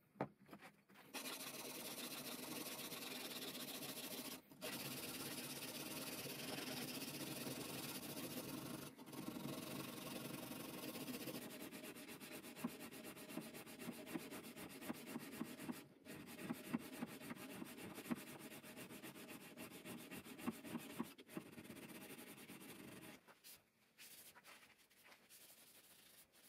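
Hand-sanding a steel bowie knife blade: abrasive rubbed in fast back-and-forth strokes along the blade, a steady scratchy rasp with a few brief breaks, quieter near the end.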